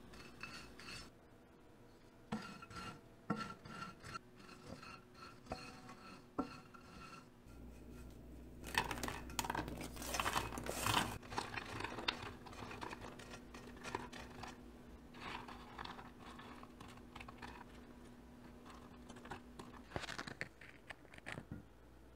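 Dry bread cubes scraping and clicking as they are turned in a nonstick frying pan. About halfway through comes a louder, denser clatter as the crisp toasted cubes are tipped out of the pan onto a wooden cutting board, followed by lighter rustling and a short rattle near the end.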